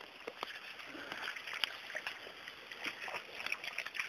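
Irregular light clicks and rustling over a steady hiss: handling noise of a handheld camera moving among tall weeds.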